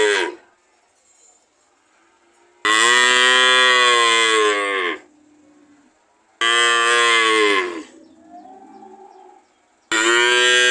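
Cows mooing: the tail of one moo at the start, then a long moo of over two seconds, a shorter one of about a second and a half, and another beginning near the end. A fainter call rising in pitch comes between the last two.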